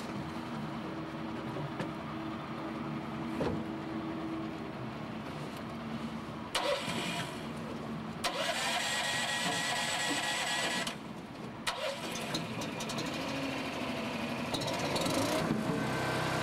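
Boat engine running steadily aboard a fishing skiff, its pitch shifting now and then. Two louder spells of rushing hiss come in the middle, a short one and then a longer one of a few seconds.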